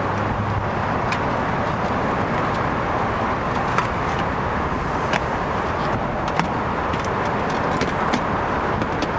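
Plastic door vapor barrier being pulled away from its butyl tape sealant, giving occasional light crackles and ticks over a steady background noise.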